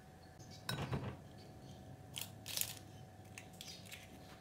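Eggs cracked against the rim of a ceramic bowl and their shells broken open: a few short sharp taps and crunches of shell, grouped about a second in and again about two seconds in.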